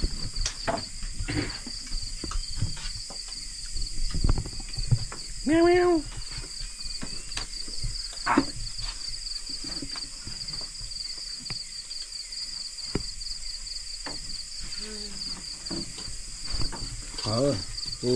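Steady, pulsing high trill of night insects, with scattered clinks and knocks of a ladle and spoons against a cooking pot and plates as food is served. A short voice sounds about six seconds in.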